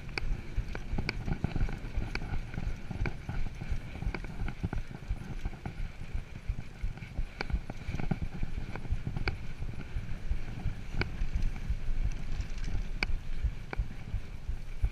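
Mountain bike rolling over a dirt trail: a continuous low rumble of tyres on dirt, broken by irregular sharp clicks and rattles from the bike over bumps, roughly one every second.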